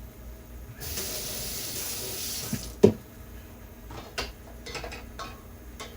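Kitchen faucet running hard for about two seconds, then shut off, followed by a sharp knock and a few light clicks.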